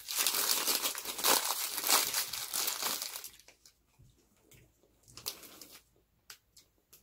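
Plastic snack wrapper of chocolate-topped rice cakes being crinkled and torn open for about three seconds, then a few faint short clicks.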